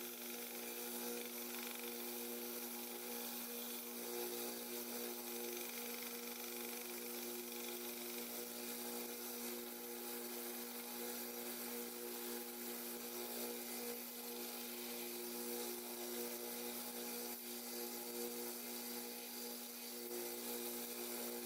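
Steady hum and hiss of an electric power tool motor running, most likely the belt sander used to contour the handles.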